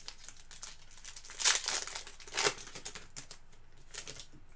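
Crinkling and rustling of trading cards and their packaging being handled and sorted, with two louder rustles in the middle and a few small clicks.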